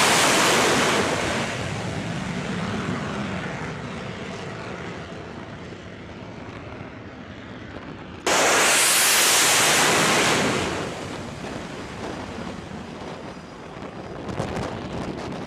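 Jet fighters launching off an aircraft carrier's catapult: a loud jet-engine roar that starts suddenly and fades as the jet moves away. A second launch starts just as suddenly about eight seconds in and fades the same way.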